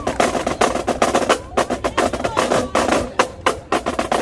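Marching drumline playing a fast cadence: rapid, sharp snare drum strokes over drums, broken by a couple of brief pauses.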